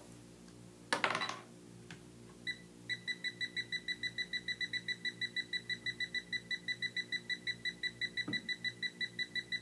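A hand-held TLD.500 hydrogen leak detector gives a single beep, then settles into rapid, evenly spaced high-pitched beeping of about five beeps a second: its alarm for a small hydrogen leak of 8.7 grams per year. A brief knock of handling comes about a second in, before the beeping starts.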